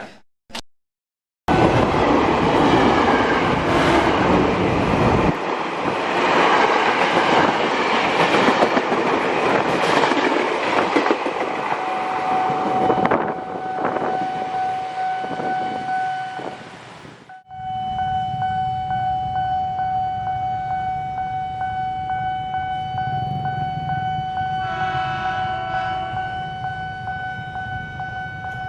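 Commuter electric train running past with loud rumbling and rail clatter for the first half. Then comes a long steady high tone that holds to the end, with a brief horn-like blast about three-quarters of the way through.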